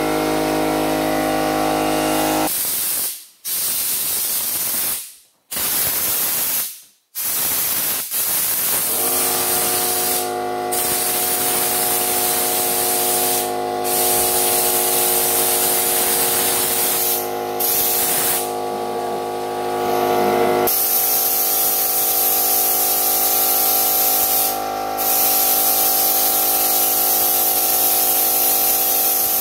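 Air-fed spray gun hissing as it sprays on bedliner, broken by several short pauses in the first eight seconds or so where the trigger is let off. A steady machine hum runs underneath.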